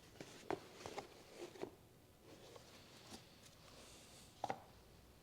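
Light clicks and knocks of an old tire pump kit being handled as its box is opened, with a few sharp taps about half a second in, around one and a half seconds in, and a louder one about four and a half seconds in.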